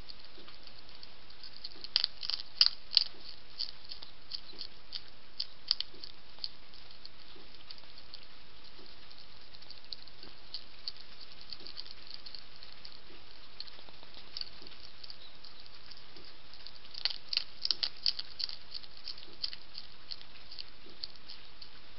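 Wild hedgehog crunching and chewing dry biscuits from a plate: a continuous run of small crisp clicks, with two louder flurries of crunching about two seconds in and again about three-quarters of the way through, over a steady hiss.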